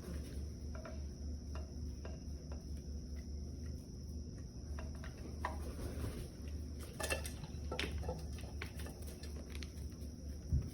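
A bird pecking at dry dog food in a dish: scattered, irregular clicks and taps of beak on kibble, a few louder ones partway through and a thump near the end, over a steady low hum.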